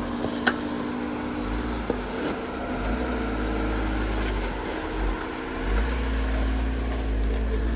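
Off-road truck engine running steadily at low speed with a low rumble, and one sharp click about half a second in.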